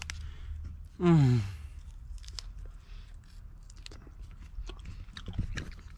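A person chewing a green strawberry close to the microphone: small, irregular wet clicks and crunches. About a second in there is a short voiced sound that falls in pitch.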